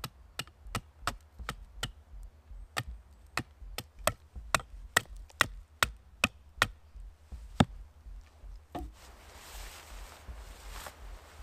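Hatchet chopping a wooden tent stake to a point on a tree stump: sharp strikes about three a second that stop about seven and a half seconds in. Then soft rustling as a tarp is handled.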